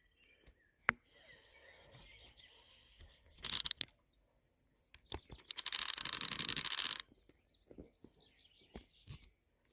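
Baitcasting reel running in short, rapidly ticking bursts, the longest about a second long just past the middle, with a few sharp clicks. Birds chirp faintly between the bursts.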